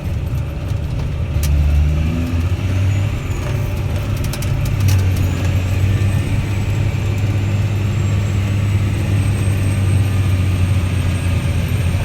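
John Deere 9220 four-wheel-drive tractor engine running under way, heard from inside the cab as a steady low drone. It grows louder about five seconds in as the tractor picks up speed. A few sharp clicks come in the first few seconds.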